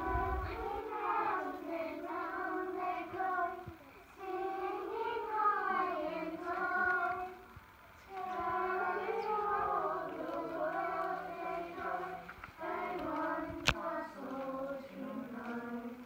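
High young voices singing a song, in sung phrases of a few seconds with short breaks between them. A single sharp click comes a little before the end.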